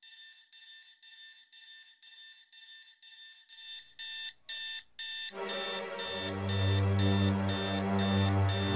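Electronic alarm clock beeping in a fast repeating pattern, about two beeps a second, growing louder about four seconds in. About five seconds in, a deep steady bass sound comes in underneath the beeping.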